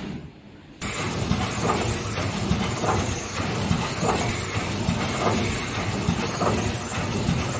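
Vertical form-fill-seal pillow-pouch packing machine running, a steady mechanical clatter and hiss with a stroke repeating a little under twice a second. It starts abruptly just under a second in.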